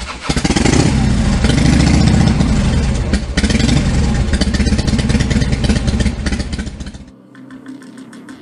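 Suzuki Boulevard C50's V-twin engine running and being revved several times, the pitch rising and falling with each blip of the throttle. The engine sound cuts off abruptly about seven seconds in.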